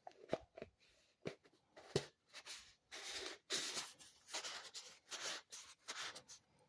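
Hand-handling noises: several sharp clicks and knocks in the first two seconds, then a run of rustling, rubbing scrapes as a watch and its packaging are put away and the next one is handled.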